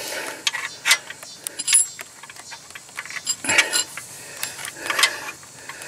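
Scattered light metallic clicks and taps as a nut is threaded by hand onto the alternator's mounting bolt, with a couple of louder knocks among them.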